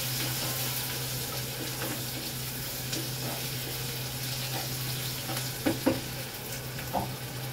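Onions and chillies frying in oil in a pot, a steady sizzle as they are stirred with a wooden spatula, which knocks against the pot a few times in the second half.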